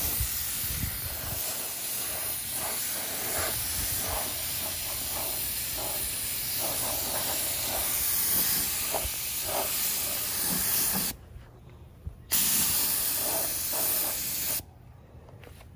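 Compressed-air gravity-feed spray gun hissing steadily as it sprays paint. The trigger is released about 11 seconds in, the gun sprays again for about two seconds, then cuts off near the end.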